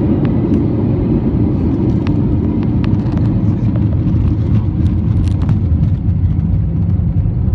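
Steady, loud low engine rumble around the airliner during de-icing, with a few faint clicks.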